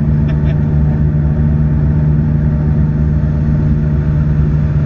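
Car engine and road noise heard from inside the cabin, a steady drone at constant pitch while cruising at an even speed.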